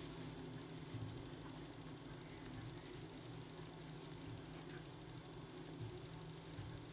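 Faint rustling and soft light ticks of a 2.5 mm crochet hook working cotton-linen yarn, over a steady low hum.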